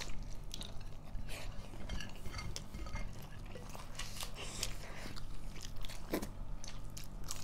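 Close-up meal sounds: dishes and utensils clinking in many short, scattered clicks, with chewing and crunching, over a faint steady low hum.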